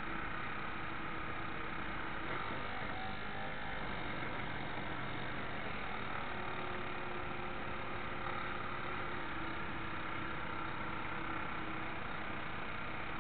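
Small drive motor of a radio-controlled model destroyer running steadily under way, heard from a camera on its aft deck, a faint even whine over water and air noise.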